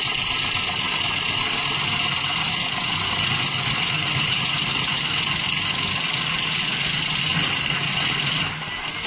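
A heavy machine's engine running steadily under a strong hiss, then dropping suddenly in level near the end.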